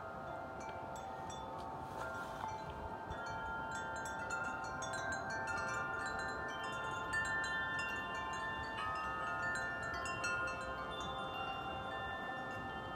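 Wind chimes ringing continuously in strong gusty wind, many tubes struck over and over so their tones overlap and sustain, over a faint rush of wind.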